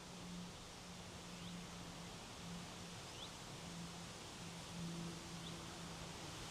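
Wind blowing steadily across an open hillside, with a faint low hum that fades in and out and three or four faint, short, high chirps from a small bird.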